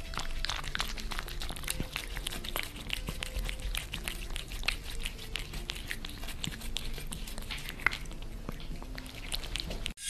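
Two cats gnawing and chewing on a shared stick: a dense, irregular run of small crunching clicks, which stops abruptly near the end.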